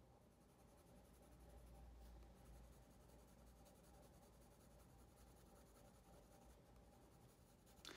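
Faint rubbing and scratching of drawing tools on paper, barely above the room's low hum.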